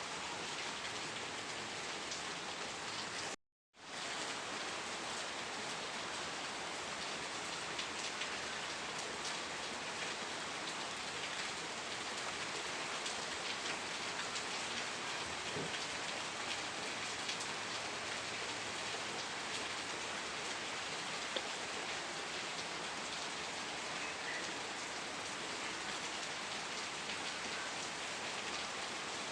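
Steady rain falling, an even hiss with fine patter of individual drops. The sound cuts out to silence for a moment about three and a half seconds in, then comes straight back.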